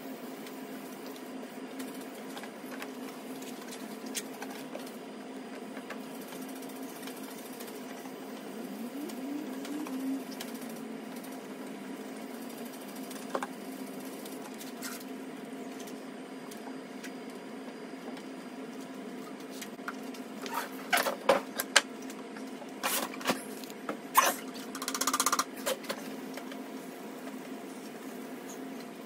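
Wet sandpaper rubbing by hand over a plastic lightbar dome, under a steady low hum. A cluster of sharp clicks and short hisses comes about two-thirds of the way through.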